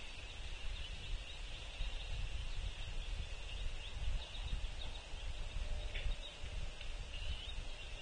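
Outdoor ambience at a bird feeder: a steady high hiss over a low, fluctuating rumble, with a few faint, short bird chirps and a brief falling call about six seconds in.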